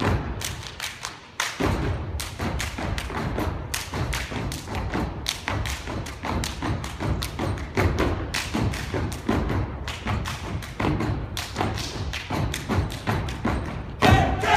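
A step team stomping, clapping and slapping in fast rhythmic unison on a stage floor, a dense run of sharp thumps and claps with a short break a little over a second in.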